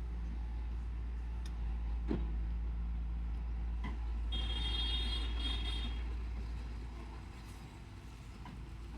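Heavy construction machine's diesel engine running steadily, with a couple of sharp knocks and a brief high whine about halfway through; the engine sound fades near the end.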